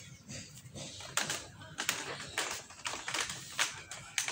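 Rapid, irregular light clicks and taps on a glazed tile floor as a kitten scampers and pounces around bare feet. The clicking starts about a second in.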